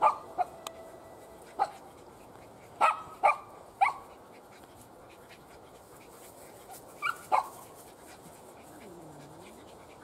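Borzoi puppies giving short, sharp yips and barks as they play, about eight in all: a couple at the start, one more, a quick run of three about three seconds in, and a pair near the end.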